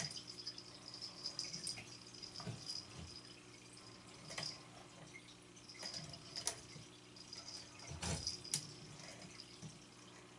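Faint clicks and taps from a plastic "Wild Thing" cat toy being batted about on a tile floor, with a few sharper clicks, over a faint steady hum and a high flickering hiss.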